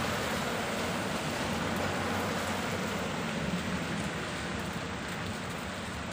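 Steady rain with traffic passing on the wet road: a light box truck, then a minibus, then a car, their tyres swishing through the water.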